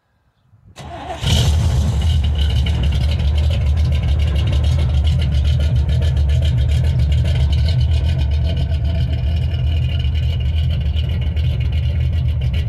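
Cammed small-block Chevy 355 V8 in an OBS Chevy pickup, on a Holley-style carburetor, starts about a second in and catches at once, then idles steadily with a fast, even pulse.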